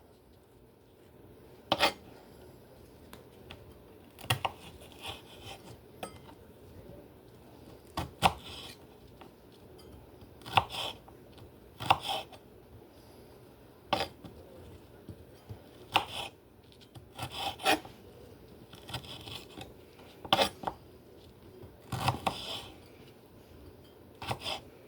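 Kitchen knife cutting food on a cutting board: irregular knocks every second or two, some in quick pairs, with the blade scraping between strokes.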